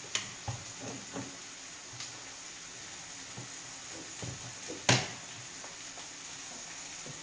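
Broccoli and salt cod frying in a pan on a gas hob, sizzling steadily. There are a few light knocks and one sharp click about five seconds in.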